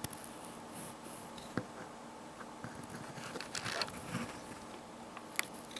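Faint, scattered clicks and crackles from a small battery pack of white cells and wire tabs being turned over in the hands close to the microphone, a few sharp ticks standing out.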